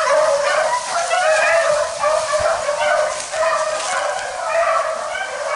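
A pack of beagles baying on a rabbit's track: many overlapping hound voices, one after another with no break.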